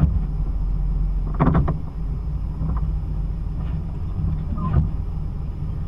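Car on the move: a steady low engine and road rumble, with a short clatter about one and a half seconds in and another just before the end.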